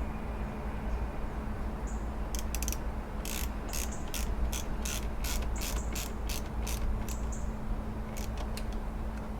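Socket wrench ratchet clicking in a steady run, about three clicks a second for several seconds, as a nut is wound on, here the battery terminal clamp being reconnected. A low steady hum lies underneath.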